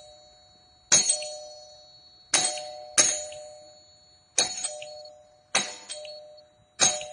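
Electromagnetic doorbell: the energised coil pulls its plunger rod, which strikes the metal tone bars. It rings six times at uneven intervals, each a sharp strike with a ringing tone that fades away.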